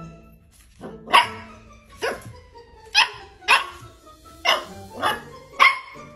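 Cavapoo puppy giving a series of short, high-pitched barks, about seven, roughly one a second, at its own reflection in a mirror.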